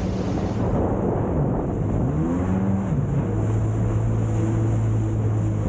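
Jet ski engine running at speed. Its pitch dips and climbs again about two seconds in, then holds steady, over the rush of spray and water along the hull.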